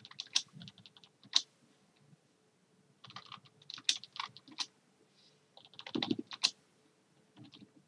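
Computer keyboard typing: short groups of keystrokes with pauses between them, as numbers are entered at program prompts.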